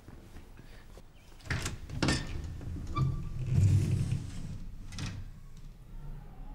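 A wooden door being opened: several sharp clicks of its metal latch and handle, with a louder low thud about halfway through.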